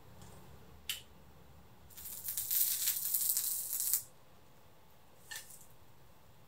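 A click about a second in as the glass pan lid comes off, then about two seconds of loud crackly scraping as a plastic slotted turner is worked under a fluffy soufflé-style pancake in a nonstick frying pan. Near the end there is a short, softer scrape as the pancake is turned over.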